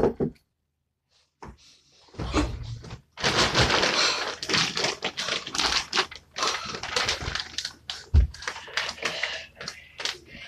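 A person climbing up onto a wooden bunk bed: a sharp thump at the start, then a long stretch of scuffing, rustling and knocking against the bed frame and bedding, with another heavy thump about eight seconds in.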